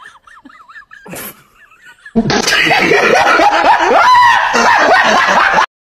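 A person laughing hard and loudly, starting about two seconds in and running for roughly three and a half seconds before cutting off suddenly.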